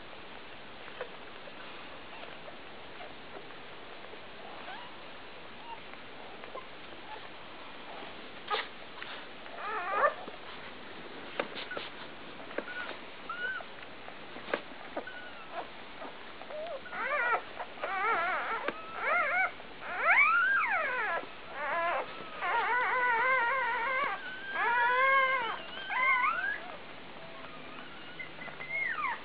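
Newborn Labrador puppies, a day old, crying and squeaking. After a quiet start with a few soft clicks, short high cries come in that arch up and down. In the second half they come thick and fast, several puppies' voices overlapping.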